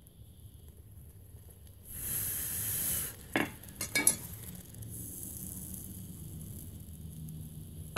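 Freshly poured molten aluminium sizzling in an oiled-sand mould. There is a loud hiss for about a second, then two short sharp knocks, then a fainter hiss that goes on.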